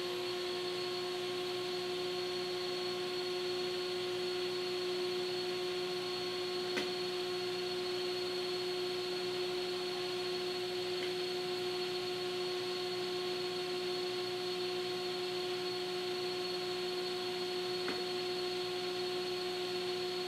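Steady electric motor hum of a shop machine running, with a constant whine at one pitch. Two faint clicks, about seven and eighteen seconds in.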